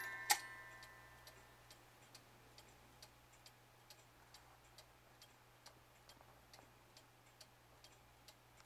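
Schmeckenbecher woodchopper cuckoo clock's movement ticking faintly and evenly, a little over two ticks a second. In the first second its tune's last notes fade out after a sharp click.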